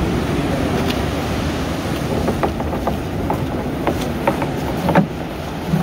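A small fishing boat under way: its motor runs steadily under wind and water noise. From about two seconds in, a series of short light knocks and clicks comes over it, the strongest near the end.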